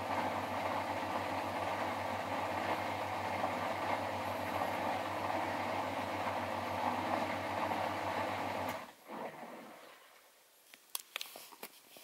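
Miele Novotronic W921 front-loading washing machine running its spin, a steady rhythmic whirr over a low hum, which cuts off suddenly about nine seconds in and dies away within a second. A few faint clicks follow near the end.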